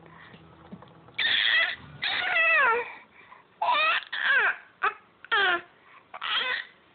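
Baby crying in about six short, high wails, several falling in pitch, the longest about a second in. She is fussing over her hiccups.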